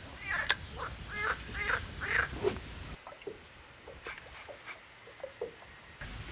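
Short, repeated animal calls: about seven in quick succession over the first three seconds, then fainter, scattered calls after that.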